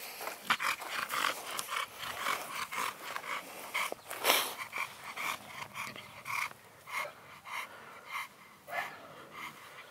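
An extreme-type American bully panting, rapid breaths at about three a second, with one louder, sharper sound about four seconds in.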